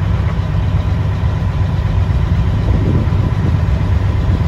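Shrimp boat's Caterpillar diesel engine running steadily with a deep, even drone and a faint steady whine above it.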